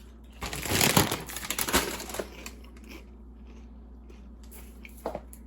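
Crinkly packaging being handled, crackling for about two seconds, then a low hum with one short click near the end.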